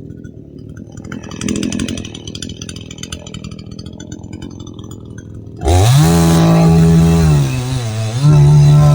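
Radley 52cc two-stroke chainsaw idling low with a light clatter about a second and a half in, then throttled up suddenly to full revs about five and a half seconds in; the high engine note holds, sags and climbs back up twice.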